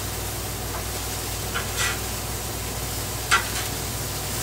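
Ground beef patties and onions sizzling steadily on a Blackstone flat-top griddle. A metal spatula scrapes and clicks against the steel top a few times, sharpest about three seconds in.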